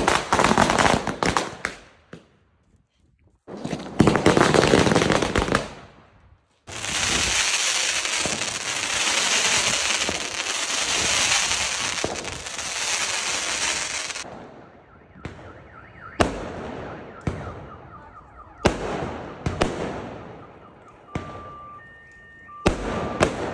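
Diwali fireworks: a ground firework sprays sparks with two loud rushing hisses. A longer steady hiss follows for about seven seconds, then a string of sharp bangs as rockets and aerial shells burst, each with a short echo. A beeping tone comes in near the end.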